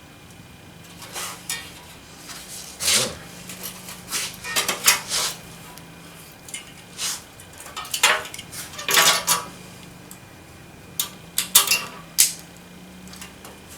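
Metal coil springs and a hand tool clinking and scraping against a steel truck seat frame as the springs are worked loose, in a string of irregular sharp clinks and rubs.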